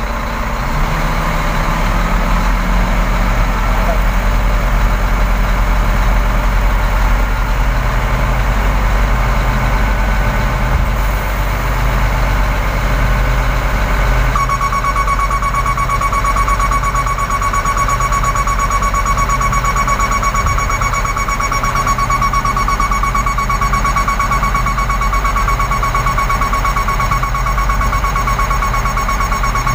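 Scania P420 dump truck's diesel engine running steadily through the PTO, driving the hydraulic hoist as the tipper body lifts, heard from inside the cab. From about halfway a low beep pulses roughly once a second, and a steady high-pitched warning tone comes on and holds to the end.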